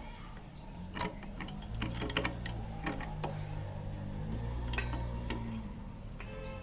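Scooter engine running steadily, picking up speed from about two seconds in and settling back down near the end. Sharp clicks sound over it, and a bird chirps briefly.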